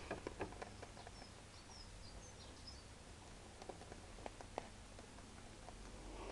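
Faint, scattered soft clicks and crunches of two rabbits nibbling cabbage leaves on straw, with a few small high bird chirps between about one and three seconds in.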